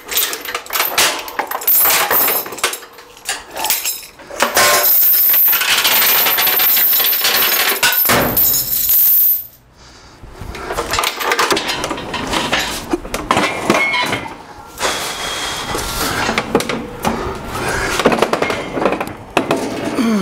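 Heavy steel lifting chain clinking and rattling as it is unwrapped from an air compressor and dropped in a pile on a concrete floor, with a long unbroken clatter in the middle as the chain is pulled off. After a short pause, scattered metal knocks and clinks.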